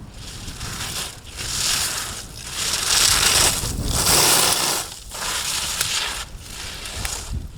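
Ski edges scraping and carving on hard-packed snow as a racer turns through slalom gates, a run of rough hissing scrapes about a second apart, loudest in the middle.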